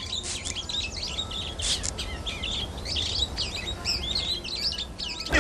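Small songbirds chirping and twittering in quick, overlapping calls. A hand spray bottle gives a short spritz about a third of the way in.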